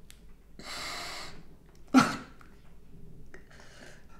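A man crying: a long sharp intake of breath about half a second in, then a sudden loud sob about two seconds in, followed by softer shaky breaths.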